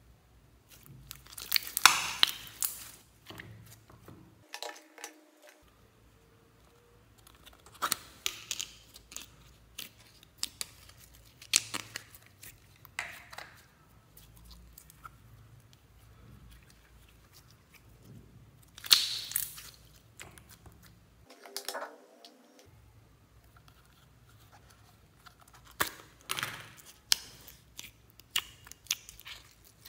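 Glitter slime being stretched, squeezed and pressed by hand, in short noisy bursts several seconds apart with quiet gaps between.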